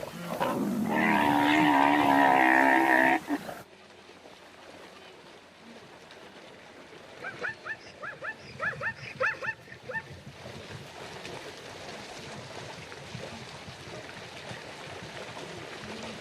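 A long, wavering animal call lasting about three seconds. Several seconds later comes a quick run of short rising chirps, about three or four a second.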